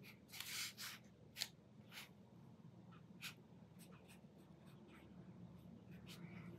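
Faint strokes of a watercolour brush on paper: one longer soft stroke about half a second in, then a handful of short light dabs and scratches.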